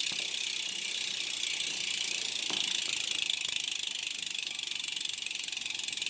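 Rear freehub of a Pacific Primum Pro road bike clicking rapidly and steadily as the wheel freewheels, its pawls ratcheting.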